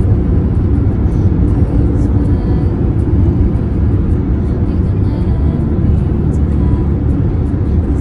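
Steady low road rumble of a car driving at highway speed, heard inside the cabin: tyre and engine noise.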